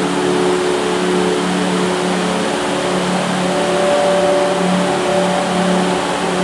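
Heavy rain drumming steadily on a corrugated metal roof, with runoff pouring off the roof edges. Under the rain runs a steady low hum of several held tones, and a higher tone joins about three and a half seconds in.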